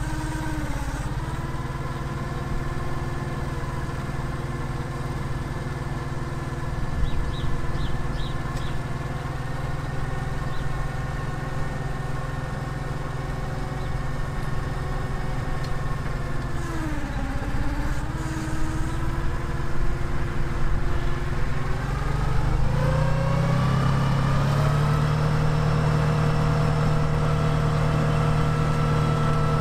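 Clark forklift engine running steadily under the load of a CNC milling machine. The engine note sags briefly about halfway through, then rises a few seconds later and holds at a higher, slightly louder speed.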